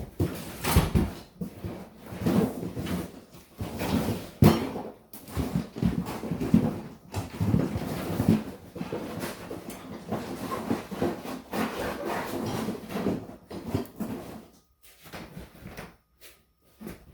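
Rummaging through a box of spare parts: irregular clattering and knocking of parts being moved about, busy for most of the stretch and thinning out near the end.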